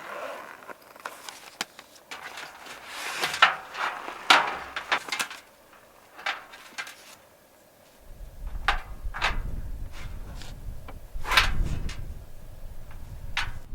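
Objects being handled: a series of sharp knocks, clicks and rustles, like wooden lids or drawers opening and closing and gear being set down. From about eight seconds in there is a low wind rumble on the microphone, with a few more knocks.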